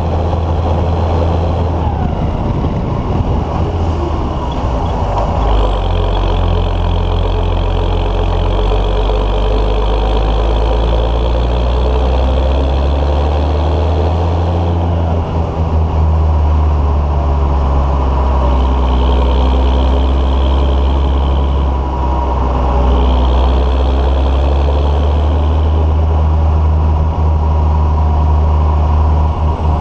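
Deutz-Fahr Agrotron 115 MK3 tractor's 4.8-litre Deutz BF6M 1012 EC six-cylinder turbo diesel (125 hp) running under way, its steady note shifting a little with engine speed. A higher whine comes in twice in the second half.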